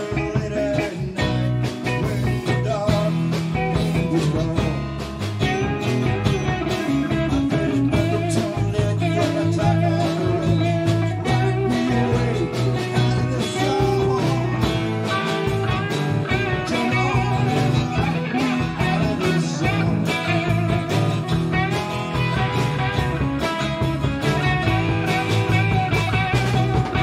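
A live blues-rock band playing: electric guitars, electric bass and a drum kit, with a guitar melody winding over a steady drum beat.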